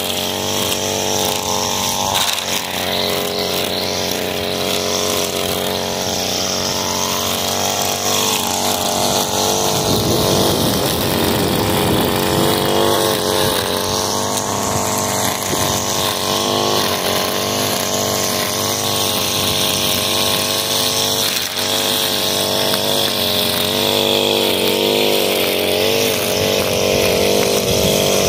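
Echo gas string trimmer's two-stroke engine running at high speed, its pitch wavering up and down as the throttle is worked while the line cuts through long grass.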